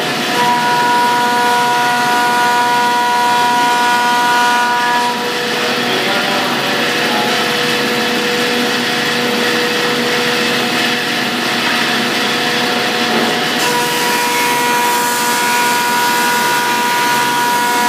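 Stationary thickness planer, run through a phase converter, planing a board: a loud, steady machine whine with several held tones over the hiss of the cutter head. Some of the higher tones drop away about five seconds in and come back near the end.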